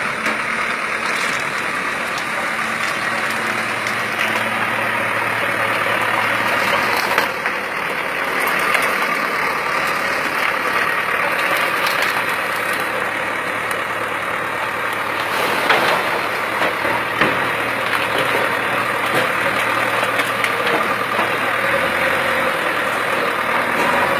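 Steady road-vehicle noise with engines running, and a few short knocks.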